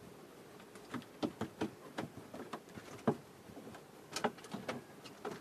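An irregular run of sharp knocks and slaps, some ringing briefly, from a freshly caught fish and its handline being handled in a small wooden outrigger boat.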